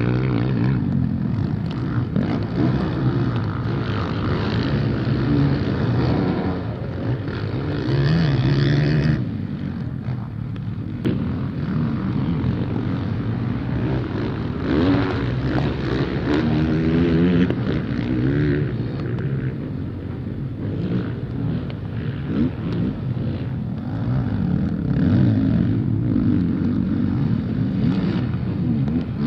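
Motocross bikes' engines revving hard and easing off as they race past, the pitch climbing and falling again and again through gear changes.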